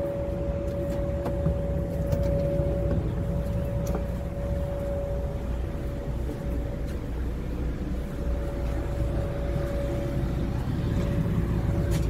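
A Greyhound motor coach idling at a stop: a steady low engine rumble with a constant humming tone over it.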